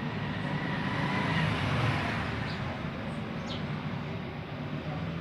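Steady road traffic noise that swells as a vehicle passes about two seconds in.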